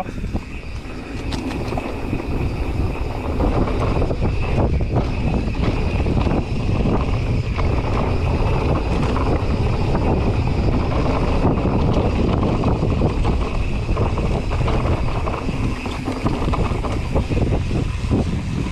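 Mountain bike riding fast downhill on a dirt singletrack: steady wind rush on the camera microphone over tyre rumble on the dirt, with frequent clicks and rattles from the bike over bumps.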